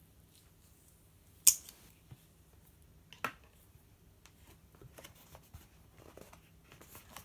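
Two sharp clicks at a desk, one about a second and a half in and a smaller one a little past three seconds, then soft paper rustling and small ticks as a hand takes hold of a paperback workbook's pages to leaf through them.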